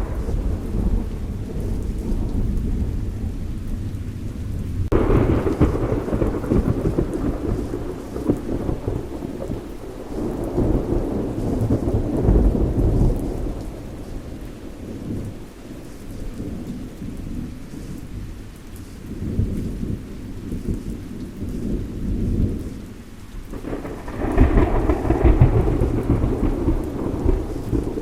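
A thunderstorm with steady rain and rolling thunder. Louder peals of thunder break in suddenly about five seconds in and again near the end, with a long rumble swelling and fading between them.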